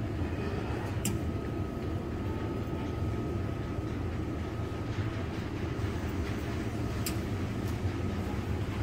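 Steady low rumble of supermarket background noise, with a faint steady hum above it and two light clicks.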